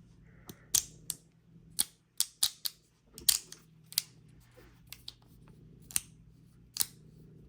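3D-printed resin magnetic fidget toy worked by hand: about a dozen sharp, irregular clicks as its strong magnets snap the parts together.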